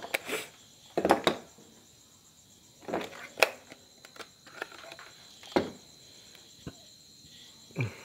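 Handling noise of a digital multimeter and its test leads: a series of separate knocks, clicks and rustles as the meter is handled and the leads sorted, with a sharper knock near the end as the meter is set down on the workbench.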